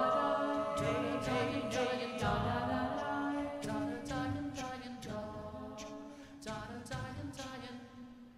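A cappella SSATB vocal ensemble singing into microphones: a held low note under stacked voices, with short sharp clicks in the texture. The singing grows steadily quieter and fades away as the song closes.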